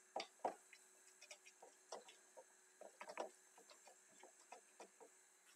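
Quiet, irregular light taps and scrapes of a utensil pressing and spreading a grated-potato and egg batter flat in a frying pan, a few knocks a second.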